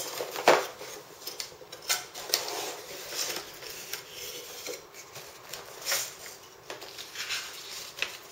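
Hands opening and rummaging through a product box and its packaging: irregular clicks, taps and rustles, with a few sharper knocks about half a second, two seconds and six seconds in.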